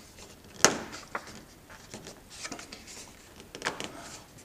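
Plastic wingtip light adaptor handled against an aircraft wingtip during a test fit: a sharp click about half a second in, then scattered lighter clicks and knocks over soft rubbing as it is pressed and slid into place.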